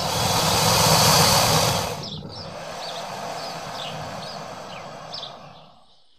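Crocodile hissing: a loud breathy hiss with a low rumble under it for about two seconds, then a quieter hiss that fades out. Faint bird chirps sound behind it.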